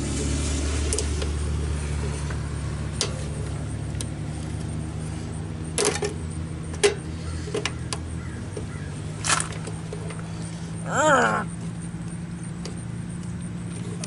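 Steady low engine hum under small plastic and metal clicks and taps as nylon anchor clips are pushed into the holes of a metal furnace door frame. About eleven seconds in there is a short rising pitched sound.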